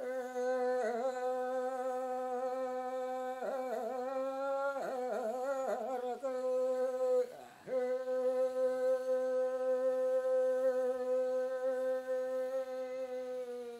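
Solo unaccompanied voice singing a Yami (Tao) fishing song in a chanted, one-line melody. It holds a long note on one pitch, wavers through a few ornamental dips in the middle, breaks briefly about seven seconds in, then holds another long note.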